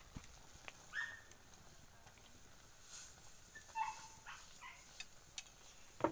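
A metal spoon clinking and scraping against a metal cooking pot, with a sharp clink near the end. A few short high whines from an animal come about a second in and again around four seconds in.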